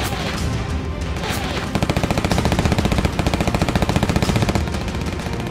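Aircraft machine guns firing as a cartoon sound effect: one rapid burst of about ten shots a second that starts a couple of seconds in and stops near the end, over background music.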